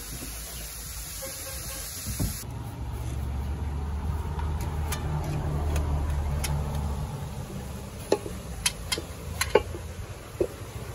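A low engine rumble swells and fades over a few seconds, like a motor vehicle going by, followed near the end by a string of sharp knocks.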